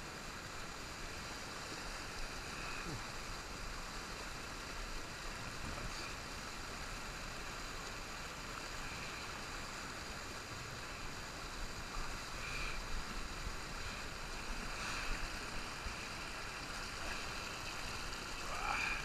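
Shallow trout-stream riffle: water rushing and splashing over rocks, steady, a little louder about two-thirds of the way through.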